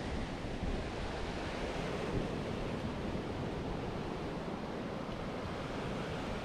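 Ocean surf breaking and washing up a sandy beach in a steady hiss, with wind rumbling on the microphone.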